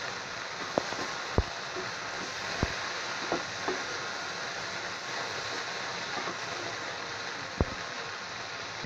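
Chopped okra sizzling steadily in hot oil in a pan as it is stirred. A spatula knocks sharply against the pan a few times.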